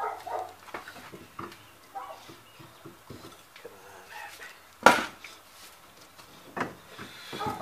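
Scattered metal clinks and knocks from hand work on a Chevrolet Lumina's rear strut and coil spring assembly, with one loud sharp clank about five seconds in.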